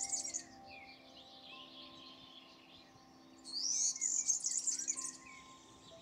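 A songbird singing high, rapid, sweeping phrases: one fades out just after the start and another runs from about three and a half to five seconds in. Soft background music with long held notes plays underneath.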